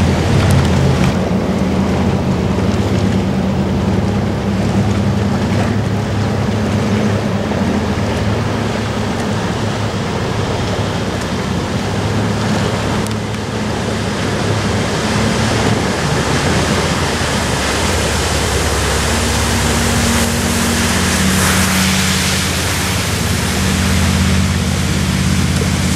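A fire boat's engines run steadily while its water cannon sprays, mixed with a constant rush of water and wind noise on the microphone. The engine note shifts in pitch about two-thirds of the way through.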